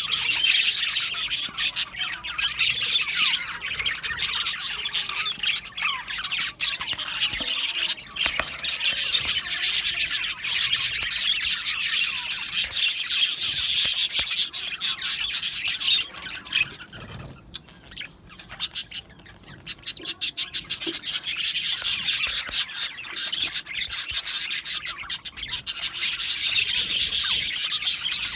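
A flock of budgerigars chattering and warbling together in a dense stream of chirps and squawks. The chatter dips briefly a little past the middle, then picks up again.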